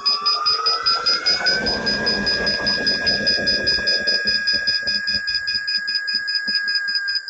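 Begode ET Max electric unicycle's power alarm beeping rapidly, about five high beeps a second: the PWM power alarm going off at about 42% PWM. Under it the hub motor whines as the wheel free-spins on a stand, its pitch rising over the first two seconds and then holding steady, with a spell of rumbling noise in the middle.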